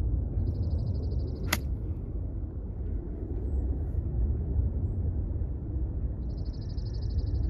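Wind buffeting the microphone throughout, with a single sharp club strike about one and a half seconds in as a golf ball is hit out of long rough. A faint, rapid, high-pitched trill comes twice, near the start and near the end.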